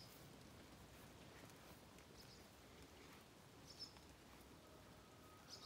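Near silence in a wet garden, with four faint, brief high bird chirps spread across the few seconds.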